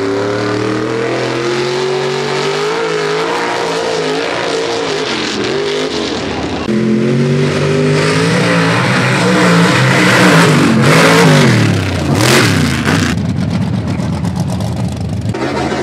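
Mud truck's engine revving up and down, its pitch wavering as it pulls through dirt. The sound jumps louder about six and a half seconds in and reaches its highest revs about two-thirds of the way through.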